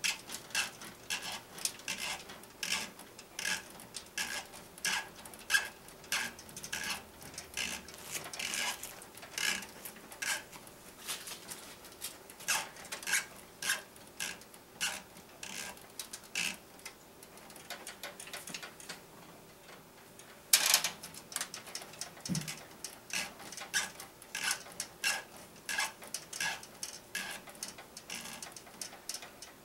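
Quick rhythmic ticking and rubbing, a few ticks a second, as a water-cooling barb fitting is twisted tight by hand inside a metal PC case. The ticking stops briefly about two-thirds of the way through, then one louder click, then the ticking resumes.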